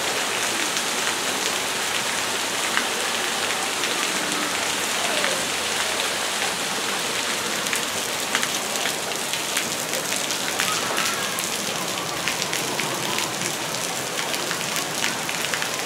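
Water from splash-pad play features falling and splashing onto a wet deck: a steady rain-like hiss with many small drip ticks through it.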